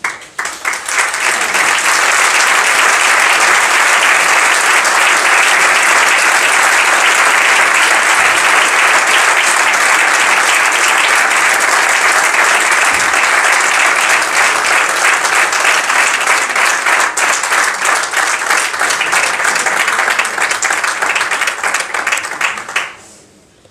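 An audience applauding: a few separate claps at first, then loud, sustained applause that dies away shortly before the end.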